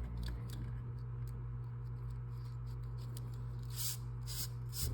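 Faint rubbing and light ticking of a string being worked and pulled through a braided side button knot by hand, with a few short scratchy rustles near the end, over a steady low hum.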